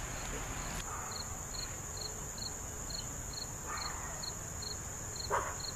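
Crickets and other insects calling: a steady high trill with a regular chirp about two to three times a second that starts about a second in. Two brief soft rustles of hands working soil and mulch around a transplanted cabbage seedling.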